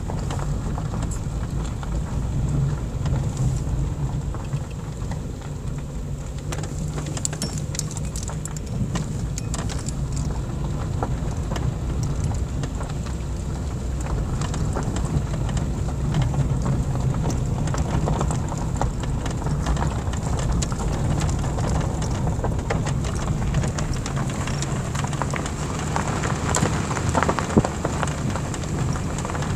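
A car driving over a loose gravel and cinder track, heard from inside the cabin: a steady low engine and road rumble with a constant crackle of gravel under the tyres.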